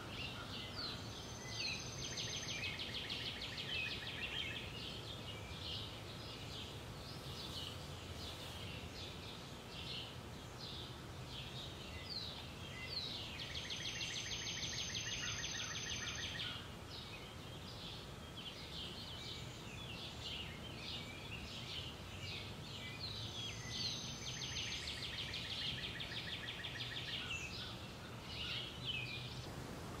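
Small birds chirping and calling, with three longer rapid trills of a few seconds each: about a second in, around the middle, and shortly before the end. A faint steady low rumble runs underneath.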